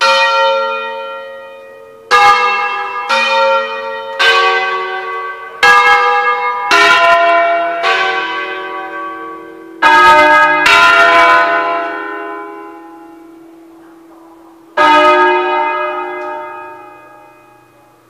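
Church tower bells rung in a solemn concerto: about ten single strokes on bells of different pitches, unevenly spaced as a tune, each ringing on and slowly fading, the last one coming after a pause of a few seconds.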